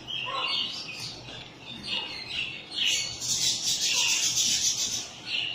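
Small cage birds chirping in quick, high notes, thickening into a dense chatter about three seconds in.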